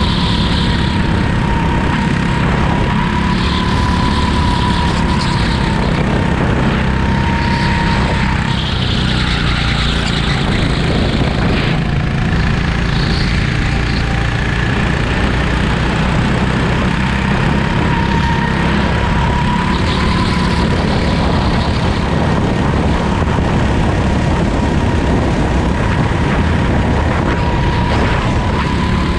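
Go-kart engine running steadily under load during a race, with a thin whine that rises and falls slightly in pitch and short bursts of hiss every few seconds.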